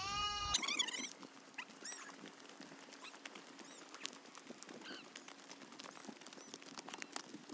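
Sheep and lambs bleating for about the first half-second, then scattered short high chirps of small birds and light crunching footsteps on dry stony ground, over a faint steady hum.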